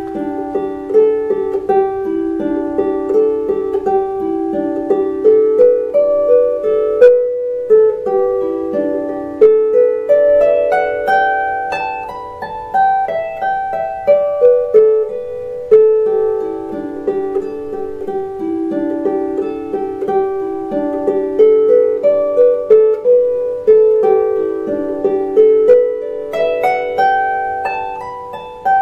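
Lever harp playing a jig melody, a quick, continuous run of plucked notes that ring on into one another.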